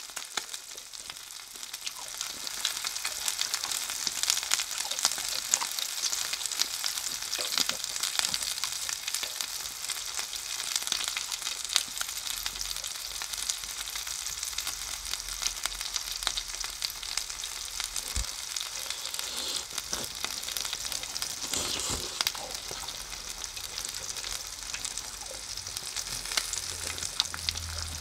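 Yakitori chicken skewers sizzling as they cook: a steady hiss with many small crackles and pops.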